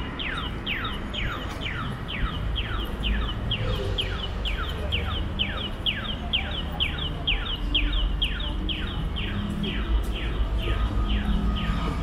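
Accessible pedestrian crossing signal chirping: a rapid, evenly spaced run of falling chirps, about four a second, that tells blind pedestrians the walk light is green. Low traffic rumble underneath.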